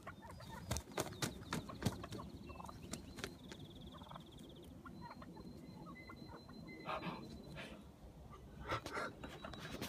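Wild turkeys gobbling, with sharp knocks in the first two seconds.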